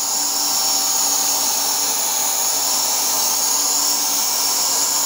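Yattich YT-191 500-watt electric paint sprayer running while spraying paint: a loud, steady, high-pitched whine and hiss that holds unchanged throughout.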